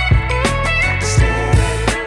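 Upbeat background music: a plucked guitar-like melody over held bass notes, with drum hits.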